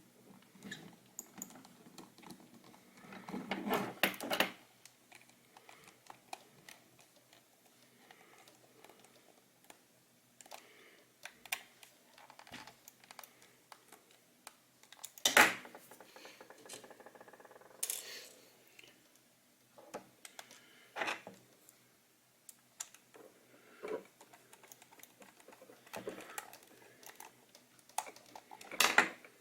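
Scattered small clicks and taps of a small Phillips screwdriver and screws against the plastic shell of a vertical computer mouse being screwed back together. There is a short rattle about four seconds in and a single sharp click about fifteen seconds in.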